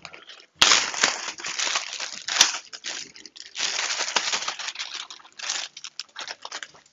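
Plastic zipper bag crinkling and rustling in irregular bursts as it is handled and opened and seasoned chicken wings are tipped out of it, with two sharp clicks, one about half a second in and one about two and a half seconds in.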